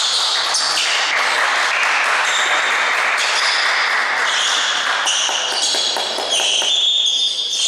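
Indoor basketball gym ambience: a steady noisy hiss with scattered short knocks from play on the court.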